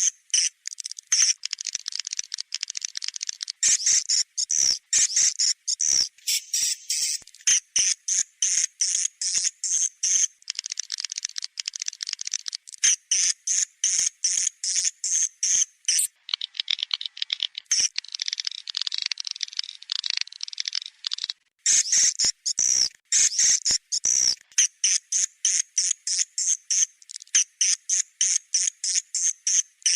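Recorded edible-nest swiftlet calls played as a swiftlet-house lure: rapid high, buzzy chirps and twitters in quick repeated trains, with a denser chattering stretch about halfway through.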